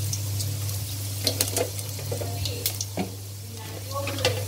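Fennel seeds sizzling and crackling in hot oil in a stainless steel pot, with scattered sharp pops.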